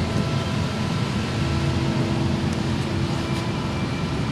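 A steady low mechanical hum and rumble with a few faint steady tones, running evenly throughout.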